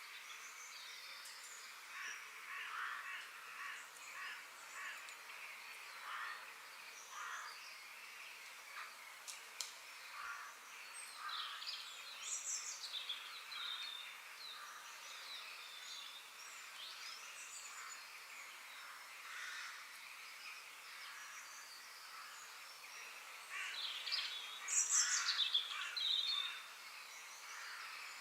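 Forest ambience: many birds calling and chirping over a steady background hiss, with a louder flurry of calls near the end.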